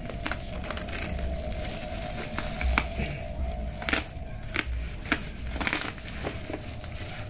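A utility knife slicing the black plastic wrap of a parcel while hands crinkle and pull it open, giving scattered crackles and small clicks.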